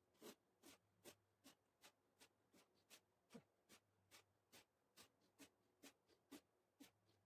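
Faint, quick, evenly spaced sounds, about two and a half a second, from a man doing Hindu squats with the footage played four times fast. They are the breaths and movement noise of each squat.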